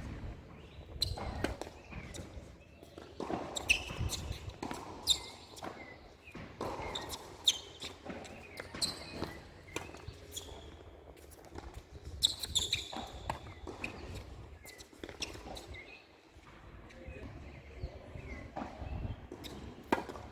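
Tennis ball being struck by rackets and bouncing on the court: a series of sharp pops and thuds at irregular intervals, the loudest a second or two apart.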